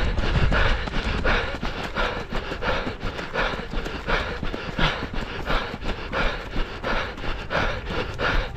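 A runner's footsteps in running shoes at race pace, a steady beat of about two and a half strides a second.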